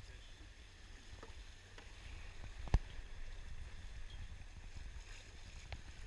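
Rushing whitewater around a raft, an even noise with a steady low rumble beneath it, and one sharp knock a little under three seconds in.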